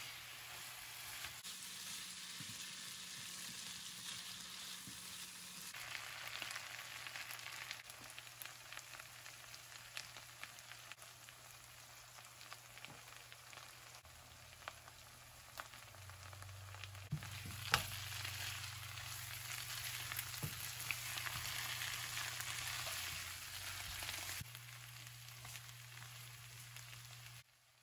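Spiced chicken pieces sizzling as they fry in oil in a nonstick pan, with scattered clicks and scrapes from a silicone spatula stirring them and one sharp click a little past halfway. The sizzle cuts off abruptly near the end.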